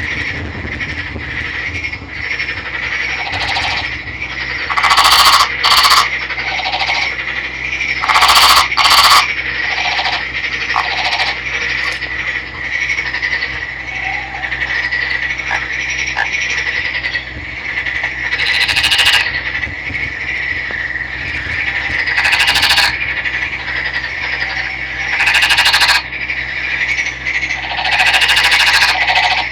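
Nagoya daruma frog calling: loud croaking bursts every few seconds, some in close pairs, over a steady high-pitched hum.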